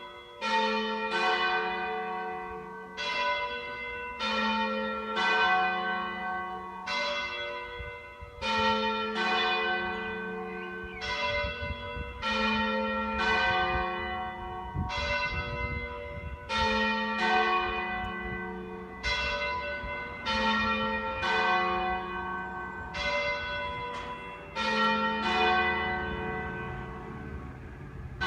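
Church bells ringing a peal: several bells of different pitch struck one after another, about one stroke a second, each stroke ringing on and fading under the next.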